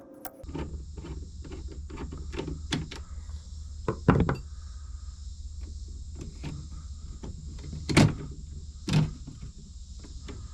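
Knocks, taps and clatter of hands and tools working at an electrical box while old wiring is pulled out, with three loud knocks about four, eight and nine seconds in, over a steady low hum and hiss.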